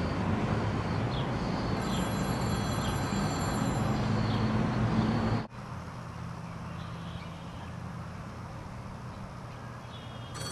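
Outdoor ambience: a steady low rumble of traffic with a few short high chirps, which cuts off abruptly about five and a half seconds in to a quieter, steady outdoor hum.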